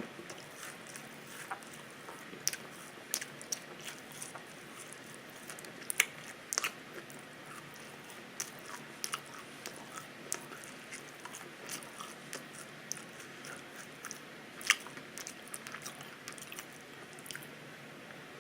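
Open-mouthed chewing and biting of burnt pizza: wet mouth noises with scattered sharp clicks, the loudest about six seconds in and again toward the end.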